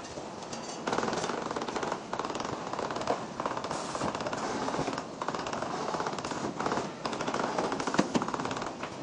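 Rapid mechanical clatter of many fast small clicks in an aluminium radiator-core workshop. It comes in about five bursts of one to two seconds each, separated by brief pauses.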